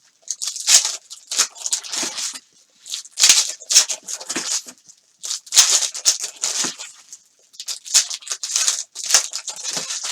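Foil wrappers of 2019 Panini Contenders Football card packs being torn open and crinkled by hand, with the cards inside being handled. It comes as a quick, uneven run of short crackling rips and rustles.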